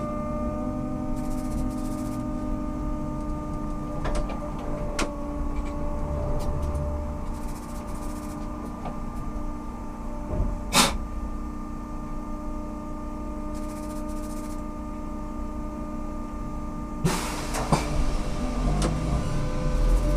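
Ikarus 280T trolleybus running, a steady hum with several constant tones from its electrical equipment, with scattered clicks and knocks. A sharp loud click comes about eleven seconds in, and a short rush of hissing noise near the end.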